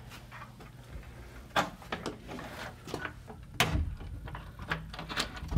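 A door being opened and closed: a few sharp clicks and knocks of the knob, latch and door, the loudest about three and a half seconds in, with a low thump at the very end.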